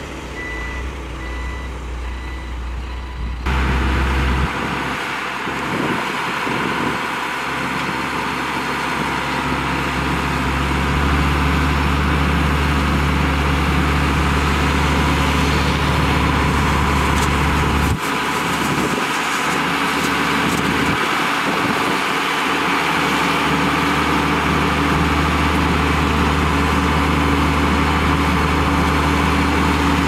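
Heavy diesel engine of a Dongfeng dump truck running, with its reversing alarm beeping for the first few seconds. The engine then runs steadily and louder from about ten seconds in as the hydraulic hoist raises the loaded tipper bed, with a single sharp click near the middle.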